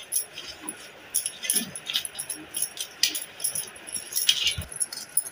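Glass bangles clinking and jingling irregularly on the wrist of a hand kneading rice-flour dough. Under them, soft pressing and scraping of the dough against a steel plate.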